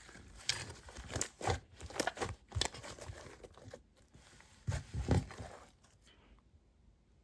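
Slime being squished and stretched by hand, giving sticky crackling and clicking pops in quick runs. A second, shorter spell of crackles follows a brief pause, and the sound stops about six seconds in.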